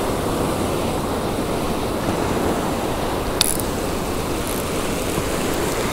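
Ocean surf washing up over the sand as a steady rush, with a single sharp click a little past the middle.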